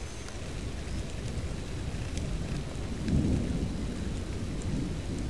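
Distant thunder: a low rolling rumble that swells about three seconds in, over steady wind noise.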